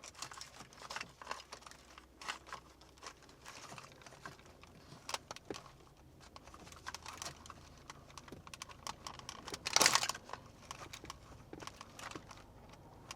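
Small plastic clicks and rustling of wiring as two USB cables are unplugged and pulled out from behind a car stereo, with a louder scraping rustle about ten seconds in.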